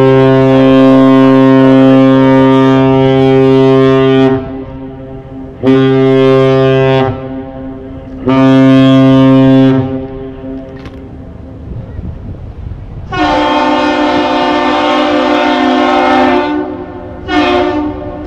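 Great Lakes freighter's horn sounding the captain's salute, one long blast and two short, answered by the Aerial Lift Bridge's higher-pitched horn with a long blast and a short one, a second short blast starting at the very end.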